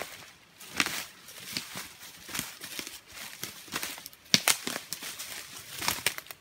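Footsteps crunching through dry leaf litter and twigs on the forest floor, about two steps a second, with one sharper, louder crunch about four seconds in.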